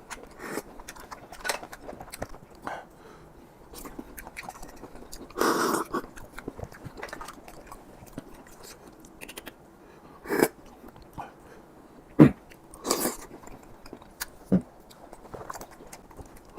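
Close-miked chewing and biting of boiled apple snail meat: a run of small wet clicks, broken by a few short, louder mouth noises.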